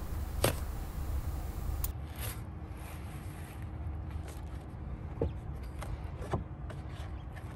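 Quiet scraping and a few light ticks as a roof boot's steel flashing plate is slid and pressed by hand against an aluminium roof sheet, over a low steady background rumble.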